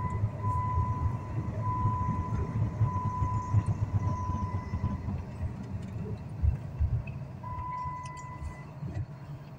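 Low rumble of a car heard from inside the cabin, with an electronic warning chime beeping about once a second for the first five seconds and sounding once more near the end.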